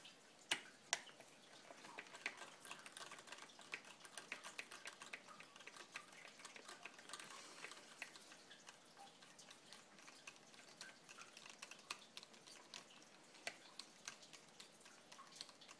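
Faint, irregular small clicks and taps of hand tools and screws being worked on an RC car's chassis, with a few sharper ticks about half a second in, about a second in and near the end.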